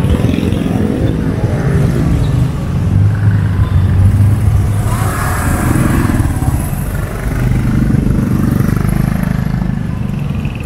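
Street traffic of motorcycles and motorcycle-sidecar tricycles running close by, a low engine hum that swells and eases as they pass.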